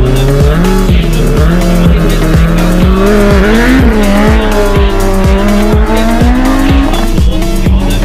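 Race car engine at high revs, its pitch climbing slowly under load and falling away about seven seconds in, over electronic dance music with a steady kick-drum beat.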